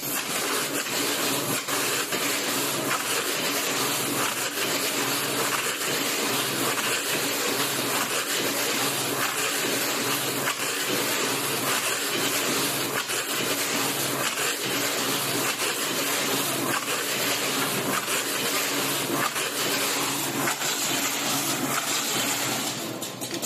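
Automatic ice box (styrofoam box) taping machine running: a steady motor hum under a loud, even hissing machine noise, which stops about a second before the end.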